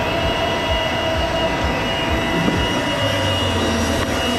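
BMW V10 of a Williams FW25 Formula 1 car idling steadily at a standstill: a constant drone with a steady high whine over it.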